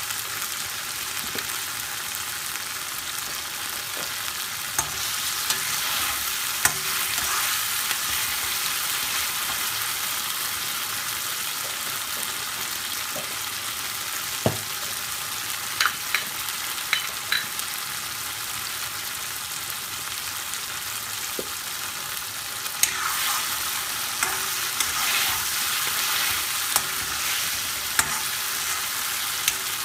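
Chicken karahi curry sizzling in a karahi, a steady hiss. A spatula and spoon stir and scrape through it and knock against the pan from time to time, busiest near the end.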